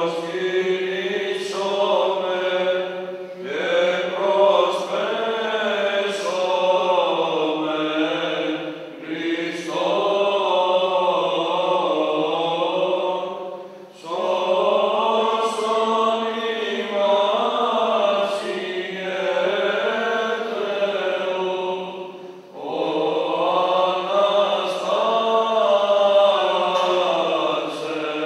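Voices chanting slow, ornamented melodic phrases over a steady held drone note. The phrases last several seconds each, with short breaks between them.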